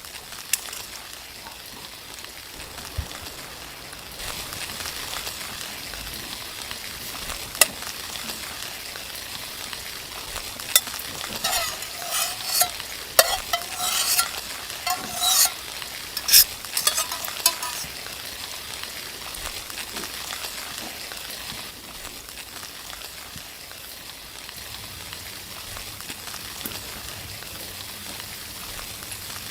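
Food sizzling in a pan, with a utensil scraping and clinking against the pan in a run of strokes from about 11 to 17 seconds in.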